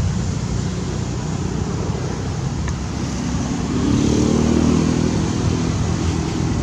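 Steady outdoor rumble of motor traffic. About halfway through, a passing motor vehicle's engine swells louder, then eases off near the end.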